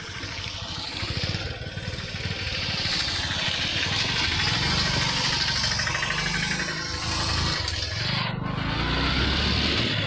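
Motorcycle engine running while riding on a rough track, with a steady hiss of wind and road noise over it. It grows louder over the first few seconds.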